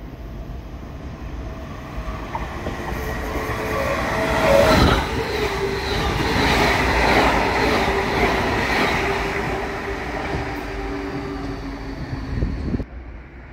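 A passenger train passing close along the platform: rail and wheel noise builds to a loud rush with a steady whine underneath, then cuts off sharply near the end.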